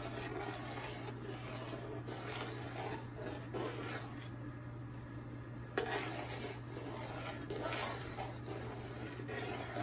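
A long spoon stirring and scraping through thick carrot kheer against the bottom of a large aluminium pot, in an irregular rubbing rhythm over a steady low hum. It is stirred continuously so the thickening milk does not stick and catch on the bottom.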